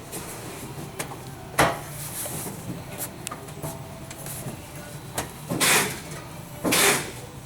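A Ford F-150 rubber rear bumper pad being pressed and fitted onto the steel face bar, giving scattered clicks and a sharp snap about one and a half seconds in, then two short scuffing sounds near the end.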